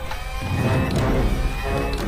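Background music from a cartoon soundtrack, with sustained tones over a heavy low end.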